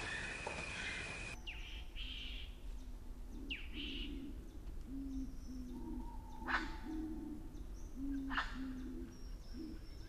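Birdsong ambience that changes about a second in. A bird gives low, short hoots repeated in runs, while other birds add higher chirps and two sharp calls.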